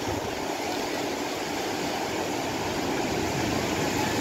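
Surf breaking and washing up the beach: a steady rush of white water, slowly building.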